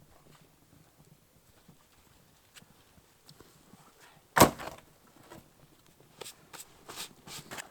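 One sharp, loud knock or crack about four and a half seconds in, then a run of lighter, irregular knocks and crunches near the end.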